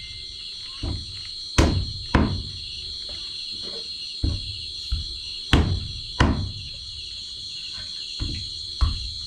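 A heavy knife chopping a snake on a round wooden chopping block: about nine sharp chops at uneven intervals. A steady chirring of crickets runs underneath.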